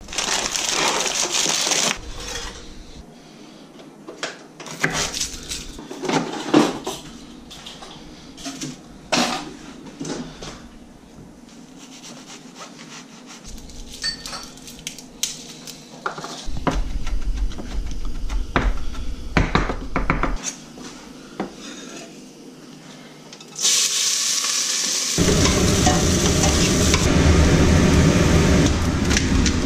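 Kitchen prep handling: scattered knocks, clinks and rustles of pots, dishes and utensils being picked up and set down. In the last several seconds a steady hiss with a low hum sets in.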